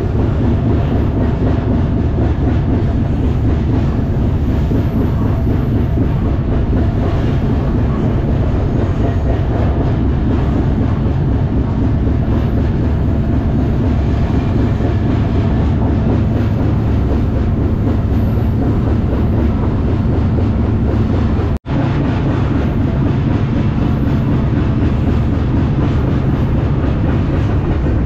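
Steady running noise of a moving freight train heard from aboard an intermodal well car: steel wheels on the rails and the car rattling. The sound cuts out for an instant about two-thirds of the way through.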